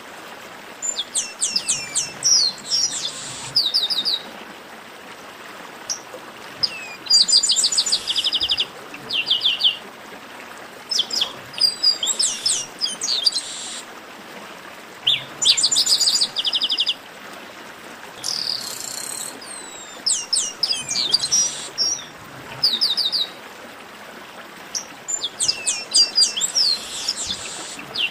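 Chestnut-capped blackbird song: short bouts about every four seconds, each a few high slurred notes running into a fast, rattling string of repeated notes.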